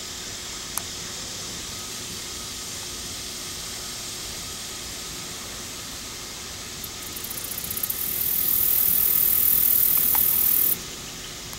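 A cicada calling: a very high buzz that begins as quick pulses about two-thirds of the way in, swells into a loud steady drone and cuts off suddenly near the end, over a steady hiss of outdoor background noise.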